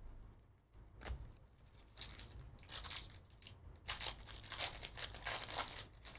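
Plastic wrappers of Panini Prizm basketball card packs being torn open and crinkled by hand. The rustling comes in a run of short bursts from about two seconds in.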